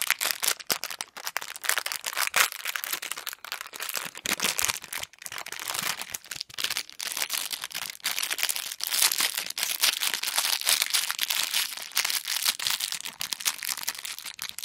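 Small plastic blind-bag packet crinkling and rustling in the hands as it is worked open, a continuous crackle of quick plastic clicks.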